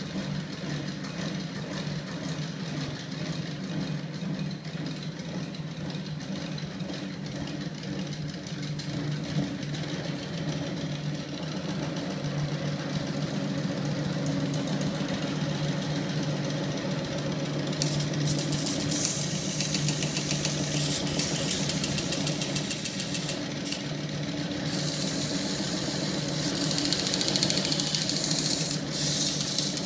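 Homemade flywheel magnet-engine rig running: its small electric motor and heavy steel flywheel give a steady mechanical hum that slowly grows louder. About two-thirds of the way in, a high hissing, scraping noise starts and comes and goes over the hum.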